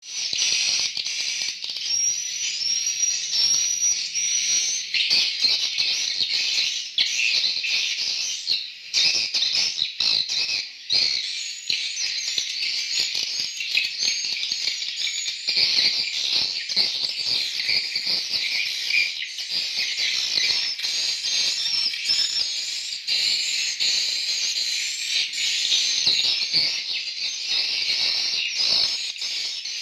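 Swiftlet calls: a dense, continuous chorus of high twittering chirps.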